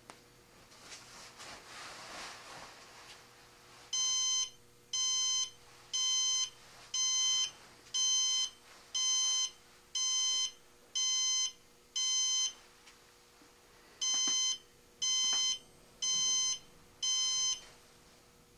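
Missile Works RRC2+ rocket altimeter's beeper sounding its arming sequence: nine high-pitched beeps about once a second, a short pause, then four more, each beep about half a second long.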